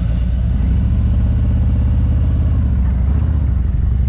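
Motorcycle engine running at low speed with an even pulse, easing off slightly about three seconds in.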